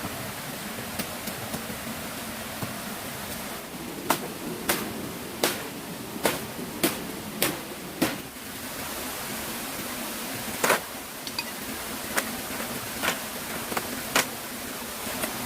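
A run of sharp knocks over a steady rushing background noise: about seven knocks in quick succession, roughly one every half second, then a few more spaced further apart near the end.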